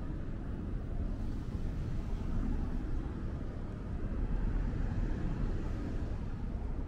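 City street ambience: a steady low rumble of traffic and general urban noise, swelling slightly about four seconds in.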